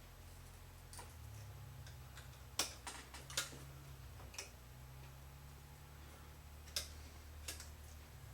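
Scattered light clicks and taps of small airframe parts and tools being handled on a workbench, irregular and a few seconds apart, the sharpest about two and a half and three and a half seconds in, over a faint steady low hum.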